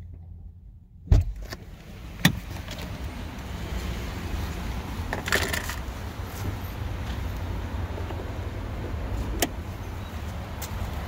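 Clunks and clicks as a Honda's driver's door is opened: a loud thump about a second in, a sharper click about a second later, and scattered handling rattles over a steady low hum from outside the car.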